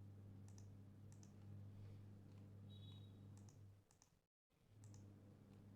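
Faint, scattered computer mouse clicks, about one a second, over a steady low electrical hum; the sound cuts out briefly about four seconds in.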